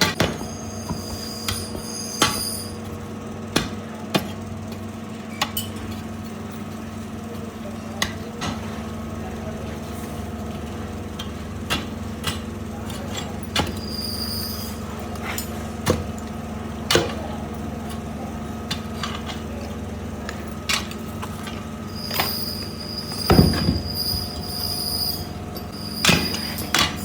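Metalworking machinery in a brass bell workshop: a steady machine hum with irregular sharp metallic knocks and clinks. A high, thin squealing tone comes in briefly near the start, once around the middle, and for a few seconds near the end.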